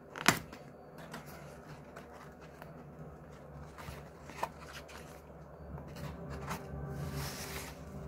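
Cardboard package being torn open by hand: a sharp crack just after the start, then soft rustling and scraping of cardboard with a small click midway, and a rougher tearing rasp near the end.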